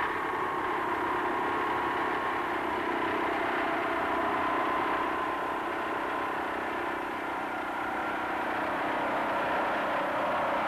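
Hanomag R12 tractor's single-cylinder two-stroke diesel engine running steadily under load.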